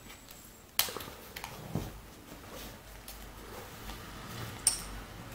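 A few sharp clicks and taps, one about a second in and a louder one near the end, with faint shuffling between them.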